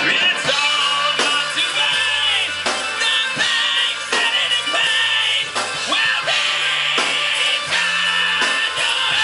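Rock band playing an instrumental passage: a steady drum beat with a hit roughly every second, a stepping bass line, and sustained higher notes held above them.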